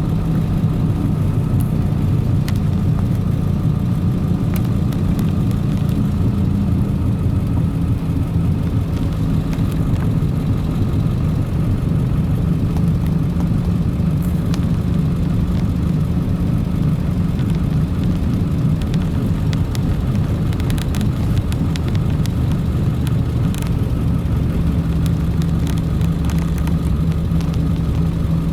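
Inside the cab of a moving 2002 Ford F250 7.3 Powerstroke diesel: a steady low rotating drone with a grind from the running gear, over the engine and road noise. The owner guesses a bad wheel bearing, though he also suspects the worn tyres or an out-of-balance driveshaft.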